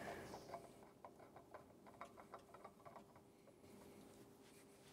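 Faint, irregular light ticks and scrapes of a spin-on oil filter being turned by hand onto its threaded mount, over a quiet steady hum. The ticks die away after about three seconds.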